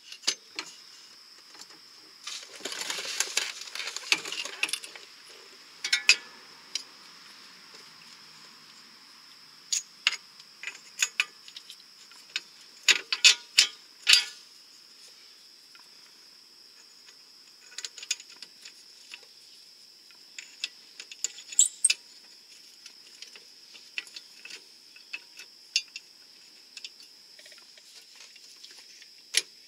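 Scattered metal clinks and knocks as a car's rear lower control arm and its bolts are handled and fitted back into place under the car, with a short scraping rustle a few seconds in.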